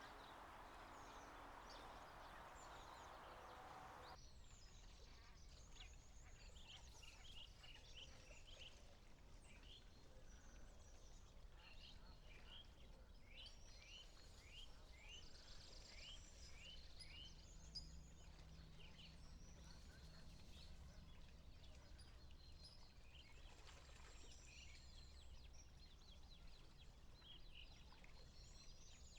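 Faint outdoor ambience of small birds calling in many short, quick chirps over a low steady rumble. A soft rushing noise in the first few seconds cuts off abruptly about four seconds in.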